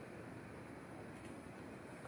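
Faint, steady outdoor background noise, a low rushing haze with no distinct events.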